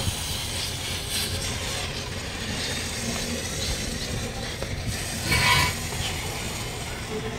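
Street traffic noise with a steady low rumble of passing engines. About five seconds in comes a brief high-pitched sound, the loudest moment.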